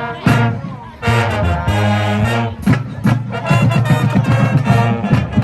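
Marching band playing: brass section sounding held chords over regular drum hits.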